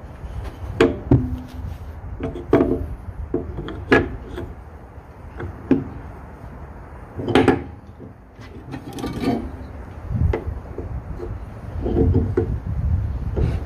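Irregular wooden knocks, clatter and rubbing as hand saws are handled and a piece of wood is set in a wooden bench vise and clamped by its screw handle. There is no steady sawing rhythm. The loudest knock comes about halfway through.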